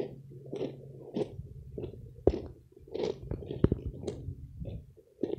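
Footsteps crunching on loose river-rock gravel, about two steps a second.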